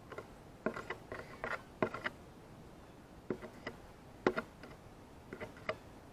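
Blue jay pecking while it feeds on a banana: about a dozen short, sharp taps of the bill in irregular clusters of one to three.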